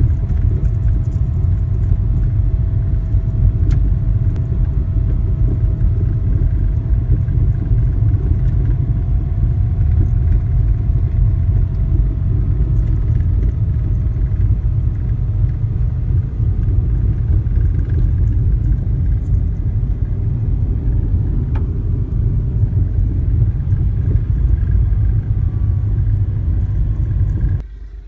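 Car cabin noise while driving on a dirt road: a loud, steady, deep rumble of tyres and engine, with a faint steady whine over it in the first half. It drops away suddenly just before the end.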